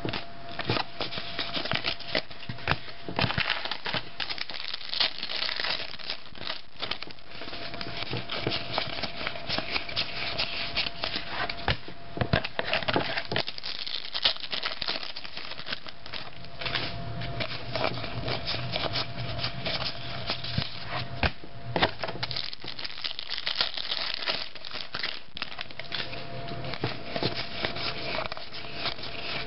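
Shiny foil trading-card pack wrapper crinkling and tearing as it is opened by hand, mixed with the rustle and clicking of the cards being handled and flicked through.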